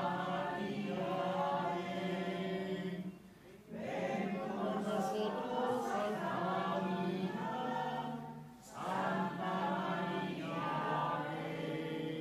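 Choir singing the entrance hymn of a Catholic Mass, a slow hymn in long held notes. The phrases break for a breath about three and a half and eight and a half seconds in.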